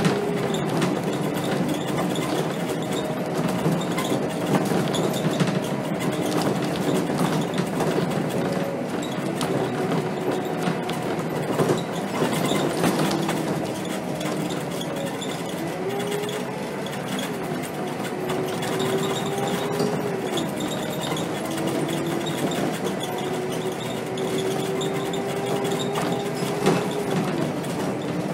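Cab noise of a Scania K270 city bus under way: its diesel engine and drivetrain running with a steady rumble and a whine that rises and falls several times with the bus's speed, plus an occasional knock from the cab.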